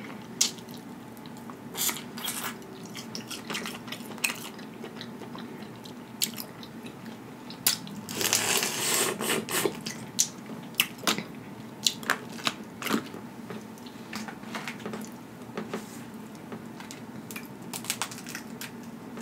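Boiled crawfish being cracked and peeled by hand close to the microphone: scattered sharp cracks and clicks of shell breaking, with chewing between them, and a longer noisy stretch of about two seconds about eight seconds in.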